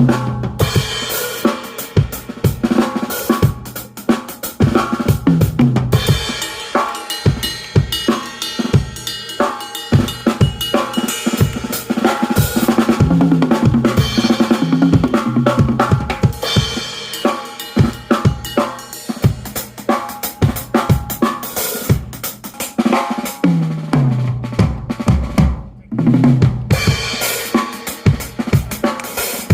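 Drum kit played through a sound check: bass drum, snare with rimshots, hi-hat and cymbals in a steady groove, broken by fills that run down the toms, about a second in and again near 24 seconds in.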